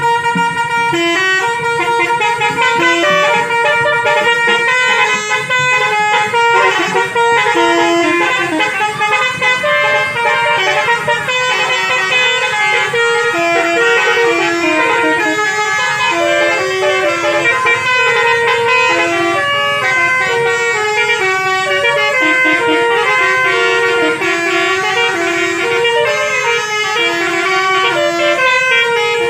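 Bus basuri horns (multi-trumpet musical air horns) playing tunes in a quick run of short held notes that step up and down in pitch, with no pause.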